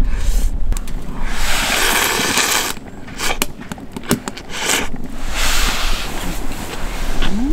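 Wind buffeting the microphone: a steady low rumble, with two longer stretches of hissing noise and a few sharp clicks between them.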